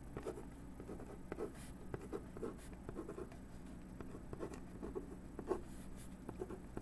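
Ballpoint pen scratching across paper in short, irregular strokes as a formula is written out, over a low steady hum.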